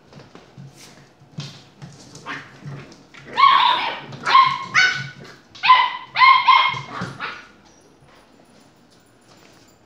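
Puppies yipping and barking in play: a quick run of about six high-pitched yaps in the middle, with fainter knocks and scuffles before them.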